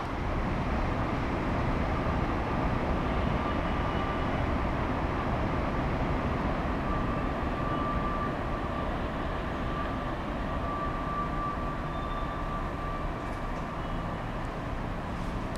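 Steady low rumble of a train running at a distance, slowly fading, with a faint high whine that comes in a few seconds in and fades before the end.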